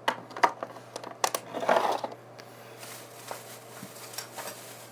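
Slime and its small plastic tubs being handled by hand: scattered small clicks and crackles, with a short rustling burst about a second and a half in.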